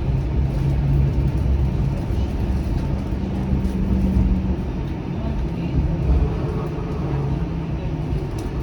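Interior noise of a Flexity Outlook low-floor streetcar under way: a steady low rumble with a low hum from the drive, one tone of the hum dropping away about halfway through.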